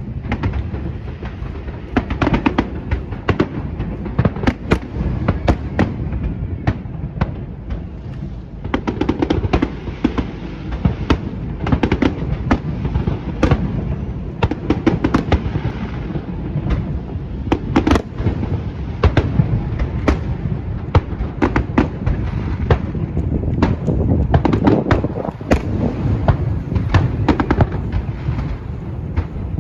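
Fireworks display: a rapid, unbroken series of sharp bangs and crackles over a steady low rumble.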